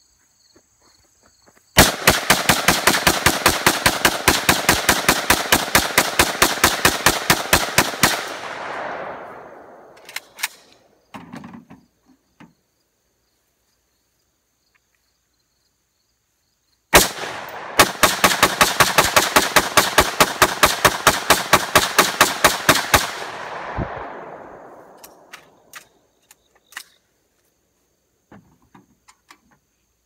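Rifle fired in two long, rapid strings of shots at an even pace, each string of several dozen rounds, with the echo fading away after the last shot. A few small clicks and knocks come in the pause between the strings.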